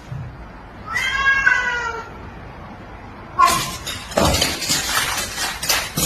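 A cat meows once, a drawn-out call of about a second, falling slightly in pitch. From about halfway through comes a loud, busy clatter of knocks and bangs, as of objects being knocked over.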